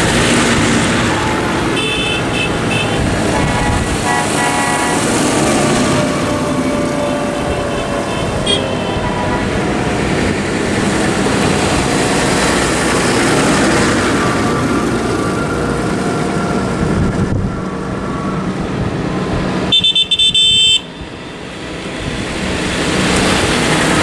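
A procession of light-decorated tractors driving past one after another on a wet road, diesel engines and tyres passing, with their horns tooting several times. The loudest is a horn blast of about a second, some twenty seconds in.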